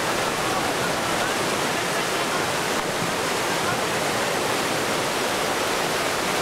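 Whitewater rapids of the Durance river rushing steadily.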